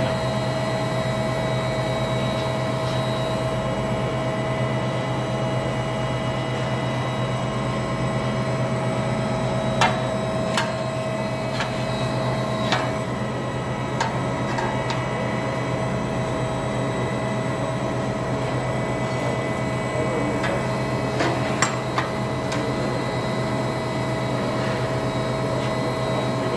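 2015 Tauring Delta 60 CNC angle bending roll running, rolling aluminium strip into a ring: a steady drone with a constant tone, with a few sharp clicks and knocks, mostly from about ten to fifteen seconds in and again around twenty-two seconds.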